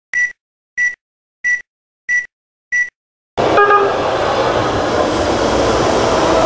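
Five short high-pitched beeps, evenly spaced about two-thirds of a second apart. About halfway through, a BART subway train's loud, steady rushing noise starts as it runs through the underground station.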